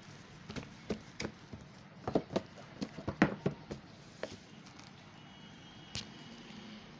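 Irregular light knocks and clicks of foam lance parts and packaging being handled, about a dozen, clustered in the first half with one more near the end.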